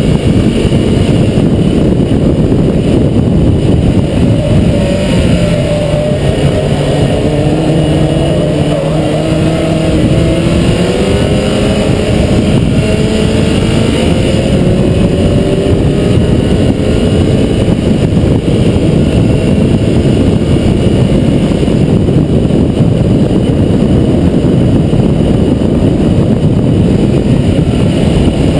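Mazda MX-5's 1.8-litre four-cylinder engine pulling hard at track speed, its pitch climbing slowly through the revs, under a heavy rush of wind and road noise on the exterior microphone.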